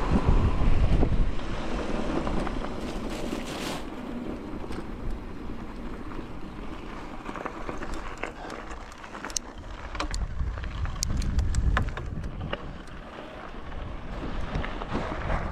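Wind buffeting the microphone in a steady low rumble, with scattered sharp clicks and ticks through the second half.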